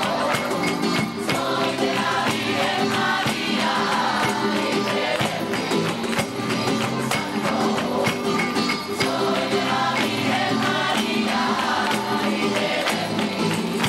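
Music: a choir singing with a tambourine shaken and struck throughout.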